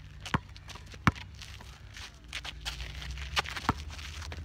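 Basketball bouncing on an asphalt court as it is dribbled: two sharp bounces near the start, then two in quick succession past the middle, with shoes scuffing on the asphalt.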